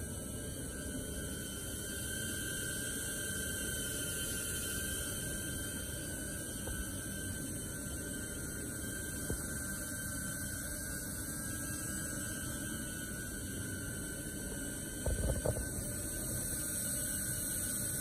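DJI Neo mini drone hovering on aftermarket Gemfan D51 propellers: a steady whirring hum with a thin high whine held on one pitch. A short cluster of knocks about fifteen seconds in.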